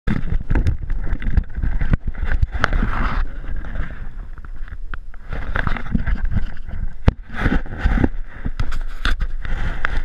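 Wind buffeting the microphone with an uneven rumble, broken by many short knocks and clicks, and one sharper crack about seven seconds in.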